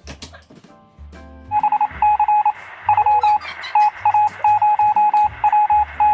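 Background music: a low bass line, with a rapid, uneven pattern of high electronic beeps coming in about a second and a half in.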